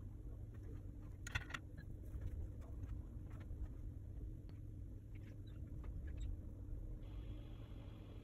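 Faint clicks and taps of paintbrushes being handled and dabbed on a ceramic paint palette, with a sharp pair of clicks about a second in. A low steady hum runs underneath.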